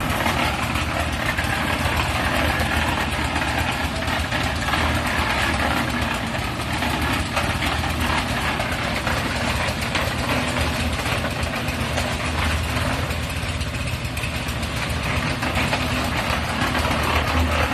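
Engine of concrete-pouring machinery running steadily, with a constant rushing noise over its low hum.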